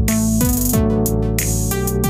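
Background electronic music: sustained synthesizer tones over a drum machine beat, its bass drum hits dropping sharply in pitch.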